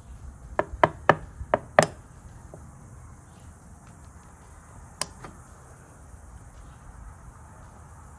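Sharp taps of small metal lock-cylinder parts on a hard work surface: five in quick succession within the first two seconds, then one more about five seconds in.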